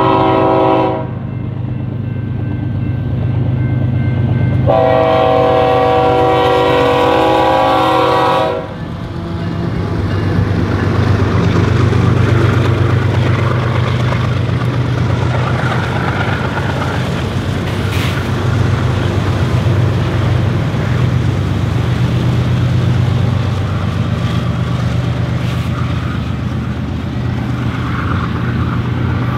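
Diesel locomotive air horn sounding a chord: one blast ending about a second in, then a long blast of about four seconds. Underneath and after it, the locomotives' diesel engines and the train run steadily.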